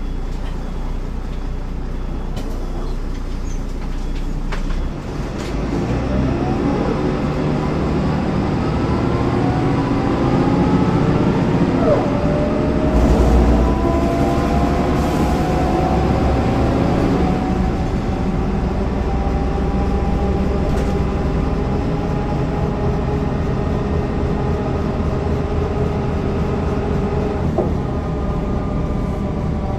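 MAN NL202 city bus's D08 diesel engine, running evenly at first and then pulling away with its note rising in pitch. The pitch drops sharply once about twelve seconds in at a gear change, climbs again, and settles into a steadier run.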